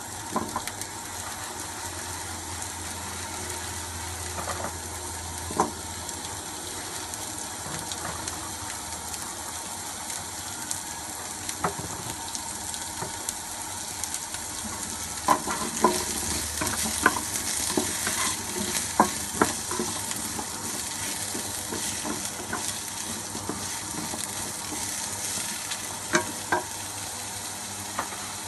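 Onion and carrot chunks sizzling steadily in a stone-coated wok, with sharp knocks of a wooden spatula and vegetables against the pan, a quick run of them a little past the middle as the vegetables are stirred.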